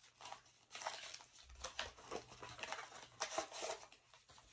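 Small white cardboard box being handled and opened: a run of short rustles and scrapes.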